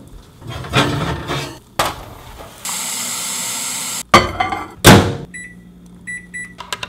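Kitchen handling sounds ending at a microwave oven: rattling and a click as an oven is opened, a steady hiss for over a second, and two sharp clunks as a mug goes onto the microwave turntable. Then four short keypad beeps, and the microwave starts to hum steadily.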